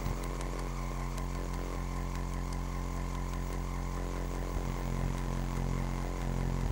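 Small electric drive motor of an RC paddle-wheel boat running steadily, a constant buzzing drone with a hum underneath.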